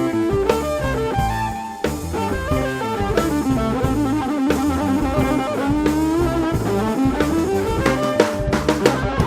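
Live band music: a drum kit and bass keep a steady groove under a lead melody that slides and bends between notes.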